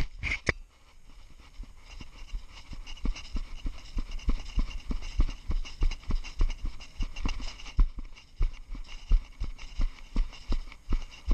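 Footsteps crunching through snow at a brisk, even pace, about two to three steps a second. Two sharp clicks come near the start.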